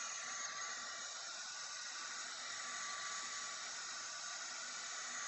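Sculpfun S30 Pro diode laser engraver running while engraving plywood: a steady hiss of blowing air from its fans, with a few faint steady tones under it.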